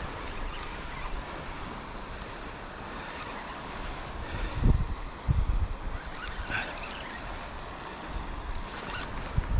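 Steady rushing of a high, fast river, with a few dull low thumps about halfway through and again near the end.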